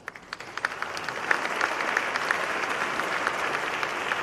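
Large audience applauding, starting suddenly and swelling within about a second into steady, dense clapping.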